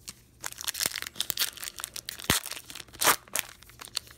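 Wrapper of a 2020 Donruss baseball card pack being torn open by hand, ripping and crinkling in a quick irregular run that starts about half a second in, with the loudest rip about three seconds in.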